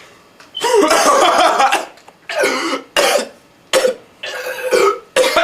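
A man coughing in a fit: one long harsh cough burst about a second in, then five shorter coughs.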